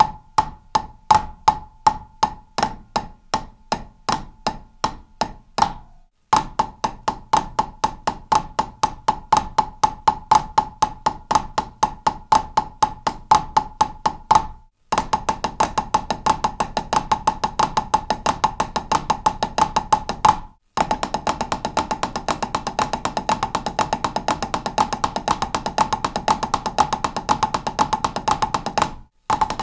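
Drumsticks on a practice pad playing a single stroke roll with a flam on the first note of each group of four, left hand leading. It runs in four sections, each faster than the last, with brief stops between them.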